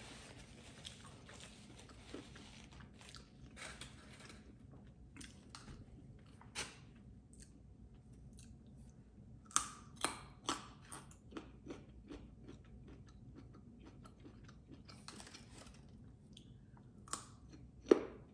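Close-miked crunching and chewing of raw carrot sticks, with crisp snapping bites; the loudest bite comes near the end. Paper napkin rustles for the first few seconds.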